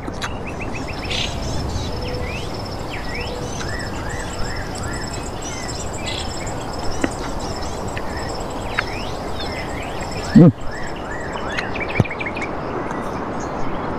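Birds chirping and insects trilling over a steady background hiss, with one short, loud hum from a man about ten seconds in.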